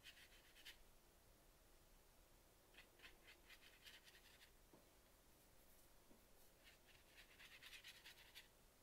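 Watercolor brush dabbing and scrubbing paint onto textured watercolor paper: faint, quick scratchy strokes in three short bursts, one right at the start, one about three seconds in and one near the end.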